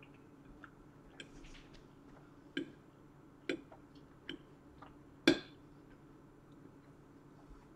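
A metal fork clinking and scraping against a plate while pasta is gathered: a few short, sharp clicks, the loudest about five seconds in.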